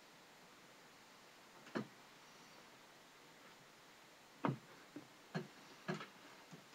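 A person hiccuping: one sharp hiccup about two seconds in, then a quicker run of four from about four and a half seconds.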